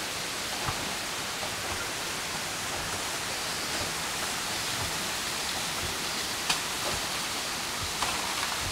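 Steady rushing hiss of water, with a few short knocks on top, the sharpest about six and a half seconds in.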